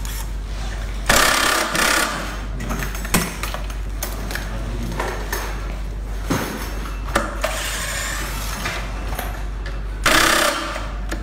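Power screwdriver running in two short bursts of about a second, near the start and near the end, backing screws out of an electric unicycle's casing, with small clicks and knocks of the tool and parts in between.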